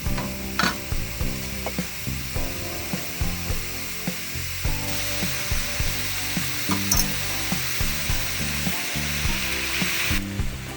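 Eggs deep-frying in hot oil, a steady sizzle with scattered clicks and scrapes of a utensil in the pan. The sizzle grows louder about halfway through and drops away shortly before the end.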